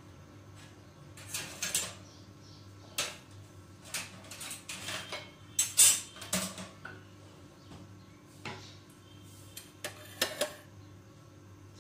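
Steel kitchenware clinking and clattering in a run of irregular sharp knocks, with a faint steady low hum underneath.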